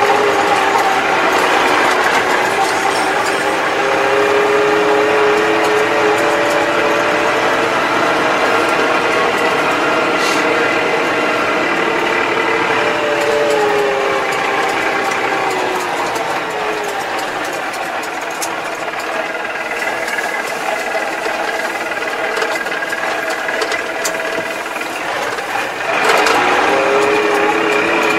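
Tractor engine running as the tractor drives along, heard from inside the cab, its pitch drifting slowly up and down. It eases off for a while past the middle and is louder again near the end.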